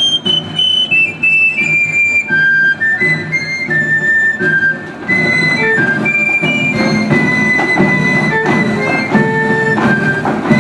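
Provençal folk dance tune led by a high pipe, a melody of short held notes stepping downward over a rhythmic accompaniment that grows fuller about five seconds in.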